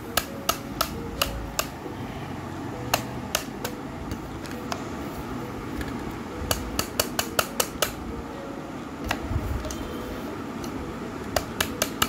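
Steel flour sieve being knocked and worked while sifting a ground powder, giving sharp metallic taps of metal on metal, some single and some in quick runs of several a second around the middle and near the end.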